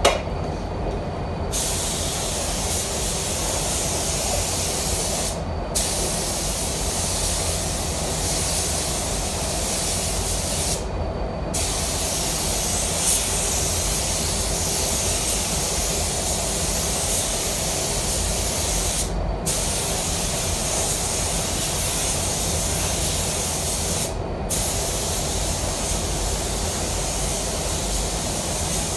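Air spray gun hissing as it sprays adhesion promoter onto a plastic bumper in long passes, the hiss cutting out briefly four times where the trigger is let go between passes. A steady low rumble runs underneath.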